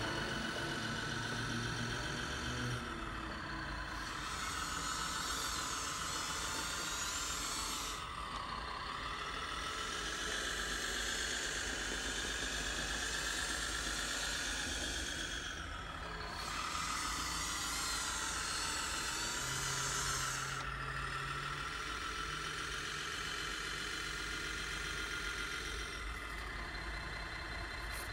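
1/16-scale RC Volvo A60H articulated dump truck with a hydraulic conversion: its hydraulic pump whines and hisses in several stretches with short breaks as the tipper body lowers, over the steady diesel engine sound from its sound module.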